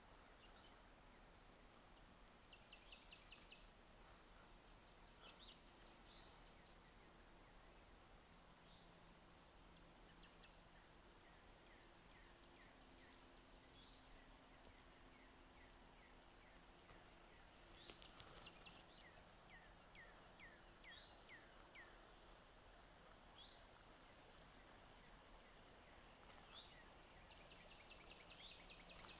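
Faint calls of small songbirds: scattered high chips and several quick series of falling notes, the loudest a brief burst of very high notes about three-quarters of the way through, over a faint steady low hum.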